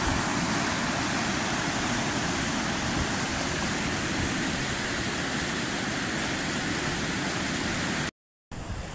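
Mountain stream rushing over rocks in white-water rapids: a steady loud rush of water that cuts out abruptly near the end.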